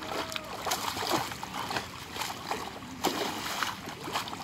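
Pond water splashing and sloshing irregularly as a large fish thrashes at the surface and men wade in and grab at it by hand. A sharper splash comes about three seconds in.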